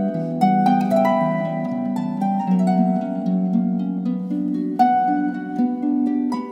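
Background music of quick plucked notes over a sustained lower part.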